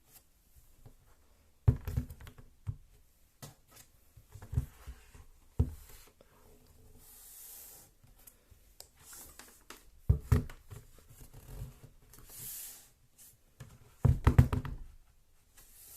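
Hands handling a plastic tablet case and stand: irregular knocks and clicks, with three louder clusters of clatter, and a couple of soft rubbing slides in between.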